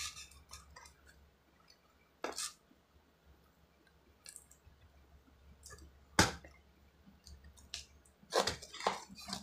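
Cardboard box being opened by hand: faint rustling and scraping of the flaps, broken by a few sharp clicks, one at about two seconds in, the loudest about six seconds in, and a quick run of taps near the end.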